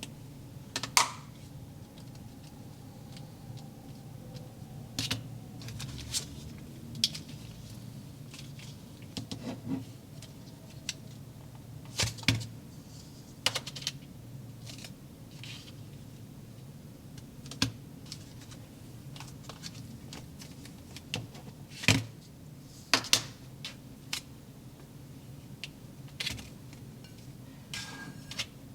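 Scattered light clicks and taps from handling small plastic toy-kit parts and containers, irregular and a few seconds apart, over a faint steady low hum.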